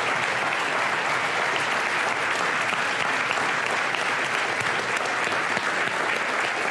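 Large audience clapping steadily in sustained applause.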